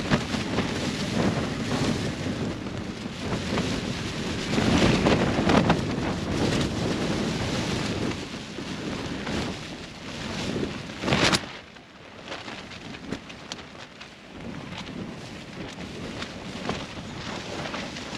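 Strong wind gusts battering a tent's fabric walls, heard from inside the tent. The gusts swell and ease, strongest around five seconds in, with a brief sharp blast just after eleven seconds before it turns calmer.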